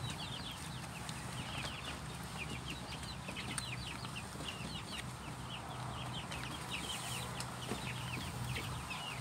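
Young chicks, about four weeks old, peeping continuously inside a covered brooder: many short, high, falling peeps overlapping several times a second.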